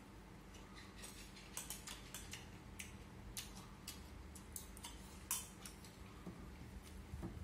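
Chopsticks and a spoon clicking lightly against a ceramic bowl and plate while eating rice: scattered small clicks, one a little louder about five seconds in.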